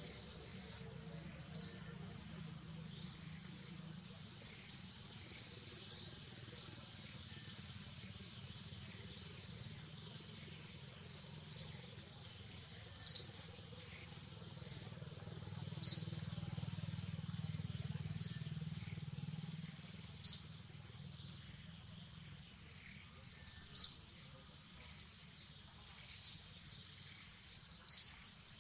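A bird's short, high chirp, repeated about a dozen times at uneven gaps of one to four seconds, over a steady thin high whine and faint forest background.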